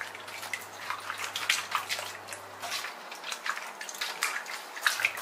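Hands swishing and rubbing a bundle of yard-long beans in a basin of water: irregular splashing and sloshing as the beans are washed.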